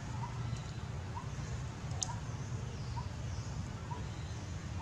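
Outdoor ambience: a steady low rumble, with a faint short chirp repeating evenly about once a second, and a single sharp click about two seconds in.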